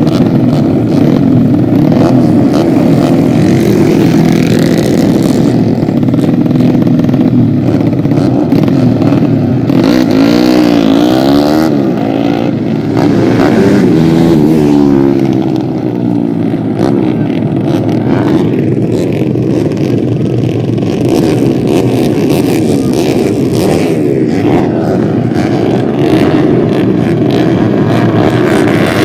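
A pack of racing motorcycles running loud and revving hard, several engine notes rising and falling across each other about ten seconds in as bikes pass.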